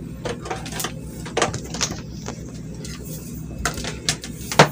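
Scattered light clicks and knocks of handling at a workbench over a steady low hum, with a sharper, louder knock near the end.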